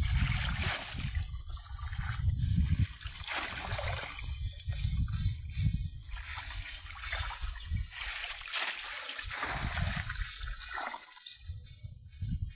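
Shallow muddy paddy water splashing and sloshing in irregular surges as bamboo polo fish traps are pushed down into it and hands grope inside them for fish. The splashing dies down near the end.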